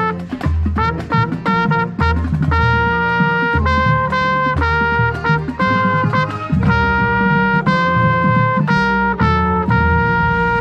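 Marching band brass ensemble playing a series of loud, held chords over a low brass bass line, with a trumpet right at the microphone standing out.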